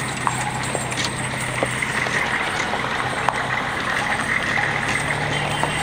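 A pirate-ship float on a trailer being towed slowly, with a steady vehicle hum and scattered clicks and knocks as the load rolls along.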